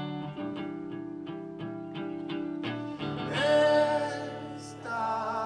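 Live rock band playing an instrumental passage: an electric guitar picks a steady run of notes, about three a second, over a held low note. About three seconds in, a louder, sustained melody line with wavering pitch comes in.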